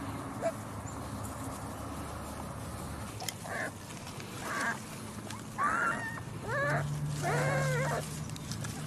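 Dachshund puppies yipping and whining: about five short, high calls that bend in pitch, starting about three seconds in, the last one longer.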